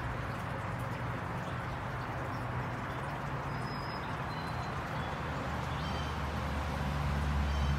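Steady background noise with a low hum that grows louder in the last couple of seconds, and a few faint, short high chirps in the middle.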